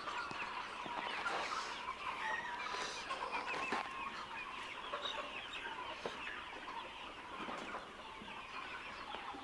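A flock of young chickens, about three weeks old, chirping and clucking: a dense, continuous chatter of many short overlapping calls.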